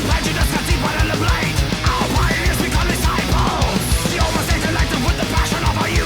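Loud heavy-metal music with a fast, driving drum beat, distorted guitars and a melodic vocal or lead line.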